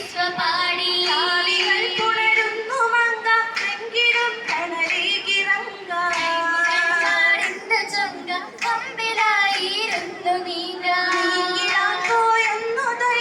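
Girls' voices singing an Oppana song, a Mappila song with a high, gliding melody.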